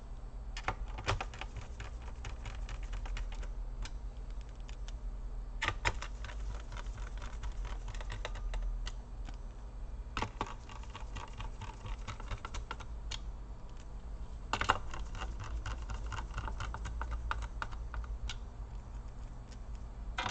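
Small screwdriver and hands refitting screws in a laptop's plastic bottom case: irregular light clicks and taps of the screwdriver bit and handled parts, with a few louder knocks.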